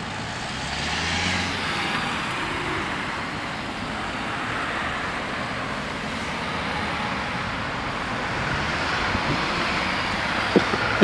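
Road traffic: cars driving past on the road, a steady tyre and engine noise that swells as they pass, with a couple of short sharp ticks near the end.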